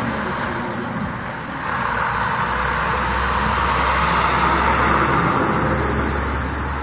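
A car passing on a snow-covered road, its tyres hissing through the snow along with a low engine rumble. It swells about a quarter of the way in, is loudest just past the middle and fades near the end.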